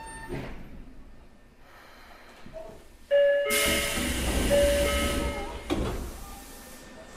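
Inside a Tokyo Metro 03 series armature-chopper subway car standing at a station: a click, a quiet pause, then about three seconds in a sudden loud pneumatic hiss with steady chime-like tones, as of the doors working. The hiss lasts about two seconds and ends in a clunk.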